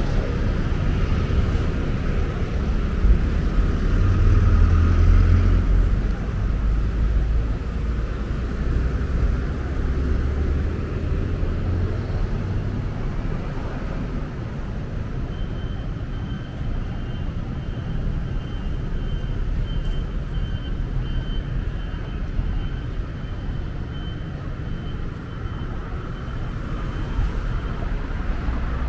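City street traffic: cars and other vehicles running and passing, a steady low rumble that swells as vehicles go by, heaviest a few seconds in and again around ten seconds.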